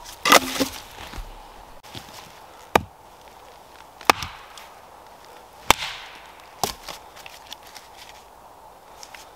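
A small axe chopping and splitting a log on a tree-stump chopping block: five sharp chops, one to two and a half seconds apart, the first ringing on longest.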